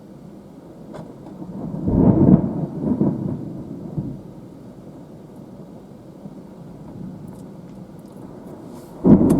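Thunder from the supercell rumbling: it swells about two seconds in and rolls through a few peaks before fading. A sudden loud crack comes near the end.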